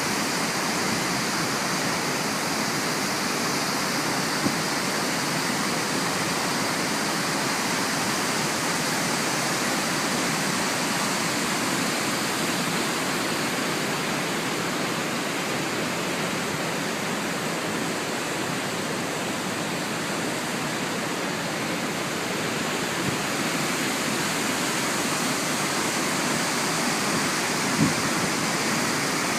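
The Ézaro waterfall on the Xallas River rushing steadily into its pools: a constant, even wash of falling water, with one brief knock near the end.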